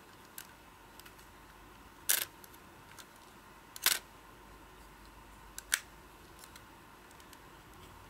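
Sony a5100 mirrorless camera being handled, giving a few sharp mechanical clicks from its body and controls. The two loudest come about two and four seconds in, with fainter ones between.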